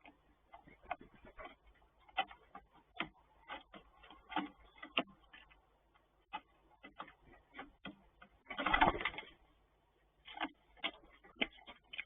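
Great spotted woodpecker pecking in irregular light taps, a few a second, with short pauses, and one louder brief rustling burst about nine seconds in.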